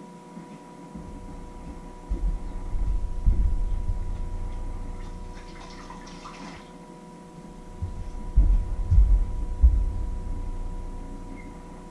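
Low thumps and rumble of barefoot footsteps crossing a tiled kitchen floor, in two bursts. About halfway through there is a short hiss, like a tap run briefly at the sink. A steady faint electrical hum runs underneath.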